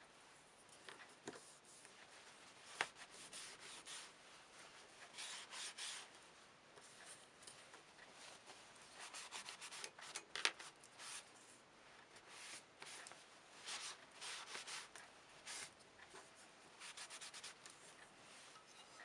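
Faint, irregular strokes of a cloth rag rubbing over a strip of dyed veg-tan leather, wiping off its finish with methylated spirits. There are a couple of sharp taps, the louder one about ten seconds in.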